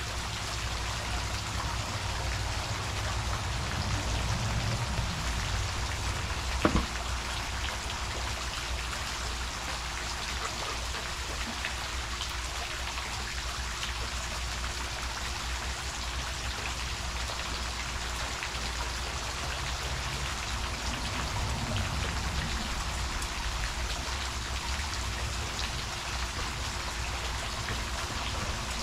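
Heavy-nap paint roller on an extension pole rolling water-thinned paint onto a stucco wall: a steady wet crackle, with a single sharp knock about seven seconds in.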